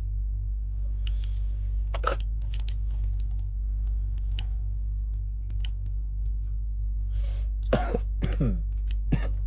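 Handling of booster packs and trading cards: scattered sharp clicks and short rustles of the foil wrapper over a steady low hum. Two short cough-like vocal sounds come near the end.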